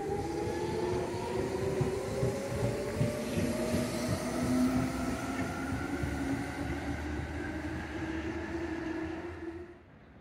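Electric commuter train accelerating, its traction motors whining steadily higher in pitch over a low rumble and irregular clicking of wheels on rail. The sound drops off abruptly just before the end.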